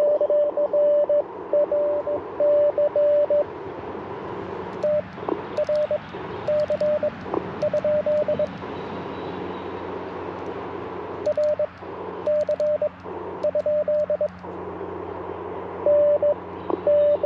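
Morse code (CW) from the Icom IC-705 ham radio transceiver: a single steady tone keyed on and off in dots and dashes, in several bursts, over a steady hiss of band noise. Faint sharp ticks come along with the keying in the middle bursts.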